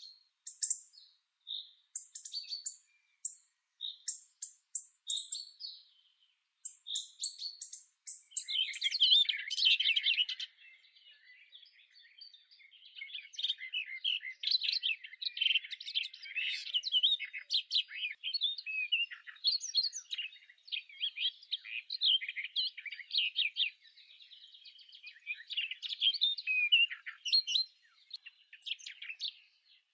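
Small birds chirping and singing: separate short, high chirps for the first several seconds, then a nearly continuous stream of rapid twittering song.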